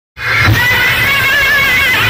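Loud DJ music played through a large street sound system: deep bass pulses under a high, wavering lead melody.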